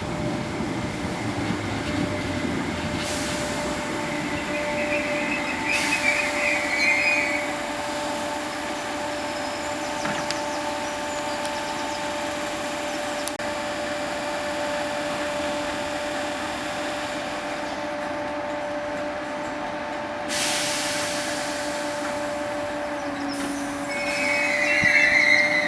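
Merseyrail PEP electric multiple unit at a station, with a steady electrical hum throughout. Brief high wheel or brake squeals come twice, about a quarter of the way in and again near the end.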